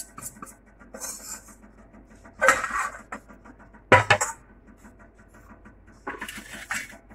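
Kitchenware handling: a bowl and a plastic measuring jug clinking and knocking on a granite countertop, with a single sharp knock about four seconds in as the loudest sound, and a scrape near the end as the jug is picked up.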